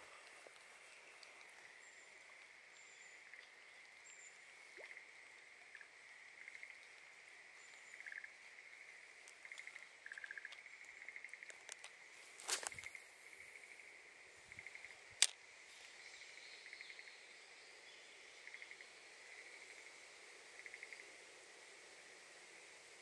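Frogs calling from a pond: short pulsed calls repeating every second or so over a faint steady chorus. There is a brief rustle about twelve seconds in and a single sharp click a few seconds later.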